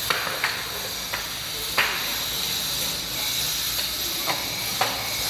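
Short, irregular metal knocks and clanks, about six of them, from workers dismantling and shifting automatic ticket gates, over a steady high hiss.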